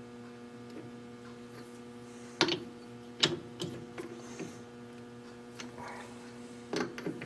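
Steady electrical hum with a few sharp metal clicks and knocks, about four in all, as a small workpiece is handled and seated in a lathe collet.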